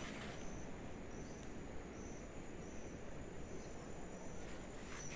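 An insect chirping faintly: a short, high chirp repeated at an even pace, about every three-quarters of a second, over a low steady rumble of outdoor background noise.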